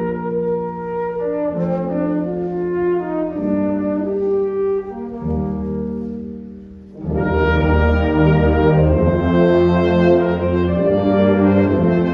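A brass-led band playing music in held chords. About seven seconds in, the full band comes in louder with low brass underneath.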